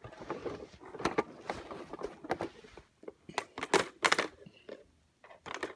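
Irregular handling noise: a run of sharp clicks and crackles at uneven intervals, with short pauses about three seconds and five seconds in.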